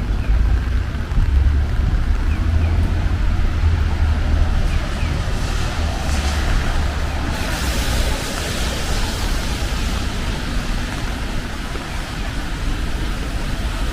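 Rainy city street ambience: a steady wash of rain and traffic on wet roads with a low rumble, and a louder tyre hiss swelling about six to eight seconds in as a vehicle passes.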